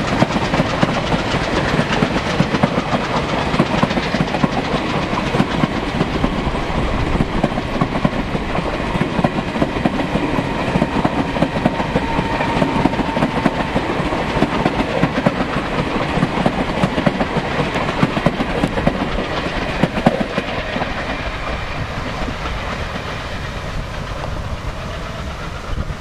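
Long train of passenger coaches rolling past, wheels clattering rhythmically over rail joints in a steady clickety-clack, slowly fading over the last few seconds as the tail of the train goes by.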